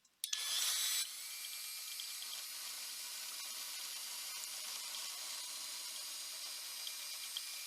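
Sanding disc on a Hyper Tough 20-volt cordless drill rounding off a sharp corner of a wooden board: a steady high-pitched sanding hiss that starts just after the beginning, louder for the first second, then runs evenly.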